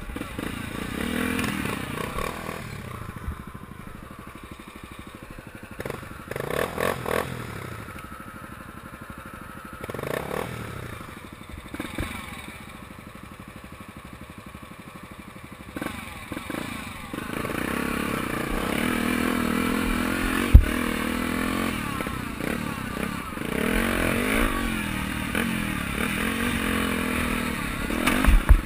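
Honda XR 250 Tornado dirt bike's single-cylinder four-stroke engine revving up and easing off while riding over rough dirt trail, with clattering and knocks from the bike over bumps. One sharp thump stands out about two-thirds of the way through.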